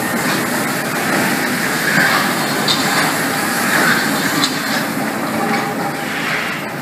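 Rubber-tyred Paris Metro Line 11 train (MP 59 stock) running past and leaving into the tunnel. It makes a steady rush of running noise with a few sharp clanks, easing off slightly near the end as the last car passes.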